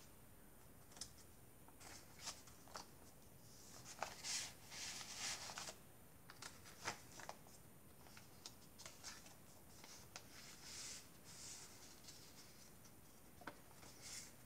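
Faint paper handling: a junk journal's pages, tags and pocket cards being turned and pulled out, with scattered light ticks and short rustles, the longest rustle about four to six seconds in.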